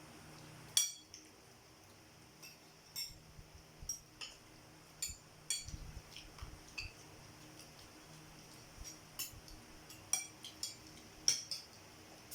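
Forks clinking and scraping on plates while spaghetti is eaten: scattered light clicks at an uneven pace, with one sharper clink about a second in.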